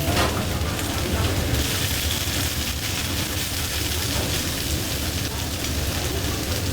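Oak-firewood fire in a rotisserie oven crackling and hissing steadily over a low, steady hum.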